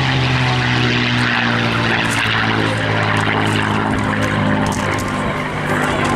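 Spitfire Mk IX's Rolls-Royce Merlin V12 engine running steadily in flight on a display pass, its pitch sagging slightly as it moves and the level dipping briefly near the end.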